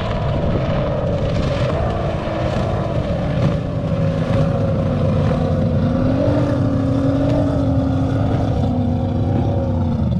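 Outboard engine of a small racing power boat running at speed across open water: a steady engine note that wavers slightly and rises a little about six seconds in.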